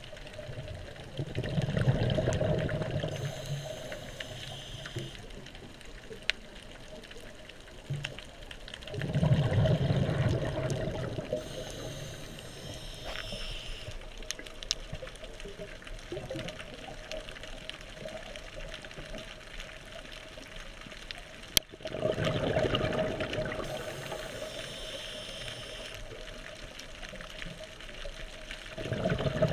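Scuba diver breathing through a regulator underwater: a loud burst of exhaled bubbles about every ten seconds, three times, each followed by a quieter, higher hiss of the next inhale.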